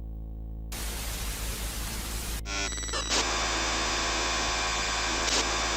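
Radio static and interference: a low hum, then a burst of hiss about a second in, which turns around two and a half seconds in into a harsher, buzzy static that holds, with one brief click near the end.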